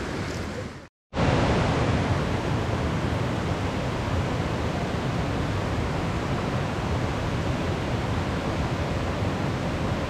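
Steady rushing of a mountain stream, which cuts out to silence for a moment about a second in.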